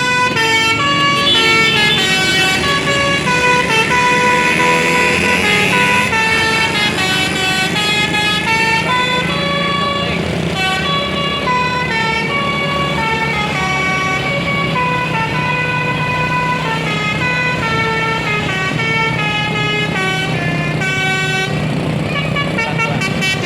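A bus's basuri telolet horn, a multi-trumpet musical air horn, playing a long melody of quick notes stepping up and down, with a steady low hum underneath.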